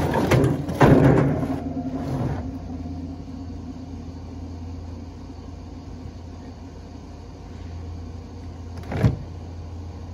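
A refrigerator scraping and knocking as it is shoved across a pickup's bed liner for about the first two seconds. Then a steady low vehicle engine hum, with a single thump about nine seconds in.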